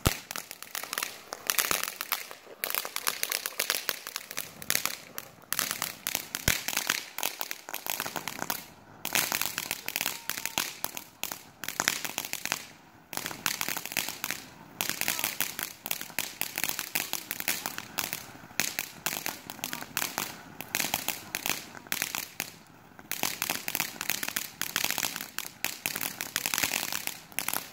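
Ground fountain firework spraying sparks with dense, rapid crackling that comes in surges, broken by a few brief lulls.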